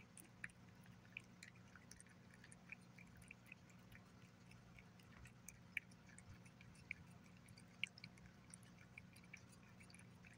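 Cat eating wet chicken paté from a glass saucer: soft, irregular smacking and chewing clicks, a few of them louder, with a faint steady low hum underneath.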